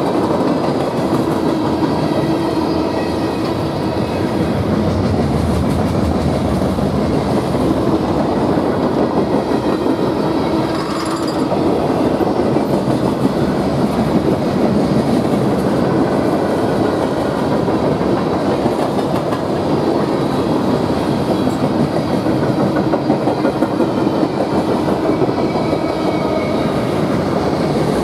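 Mixed freight train cars (boxcars, tank cars, covered hoppers) rolling past: a steady rumble of steel wheels on the rails.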